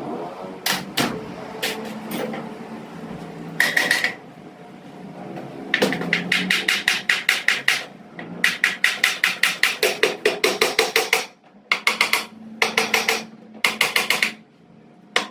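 Rapid mechanical hammering in repeated bursts of one to three seconds, about ten sharp blows a second, the sound of an impact-type tool. A few single knocks come first.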